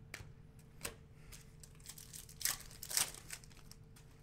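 Plastic foil wrapper of a Panini Hoops basketball card pack being torn open and crinkled: several short crackles, the loudest a pair about two and a half and three seconds in.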